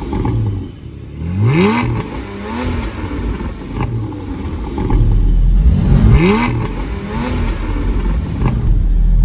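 Porsche 718 Cayman GT4's 4.0-litre naturally aspirated flat-six idling and blipped twice through the exhaust, the pitch sweeping sharply up and falling back each time: once about a second and a half in, again about six seconds in.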